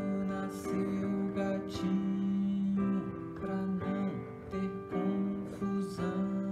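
Strummed acoustic guitar playing a simple song, with a man singing along in held notes.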